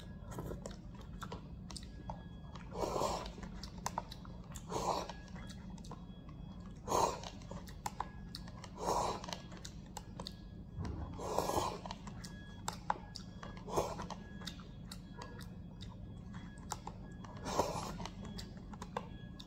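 A person sipping and slurping noodle broth straight from a paper cup, short sips about every two seconds, with small clicks between them.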